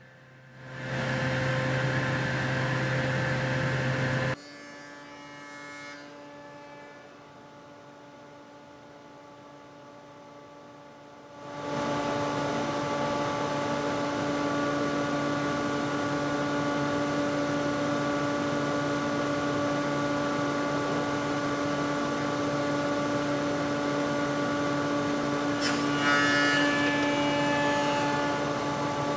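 Electric woodworking machine cutting panel grooves and rebates, its motor running with a steady hum. It drops away suddenly about four seconds in, starts again about twelve seconds in and keeps running, with a short harsher buzz near the end.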